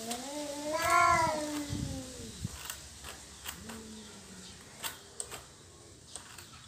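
Domestic cat yowling in a territorial standoff: one long, wavering yowl that swells about a second in and fades out by about two and a half seconds, followed by a few faint clicks and a short, low call.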